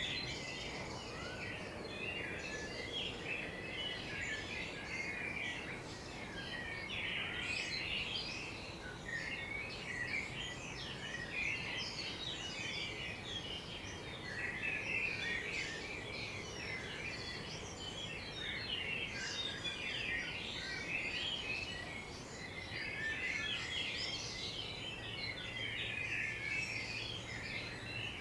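A chorus of several garden birds chirping and singing at once: dense, overlapping short chirps and trills without a break, over a faint steady background hum.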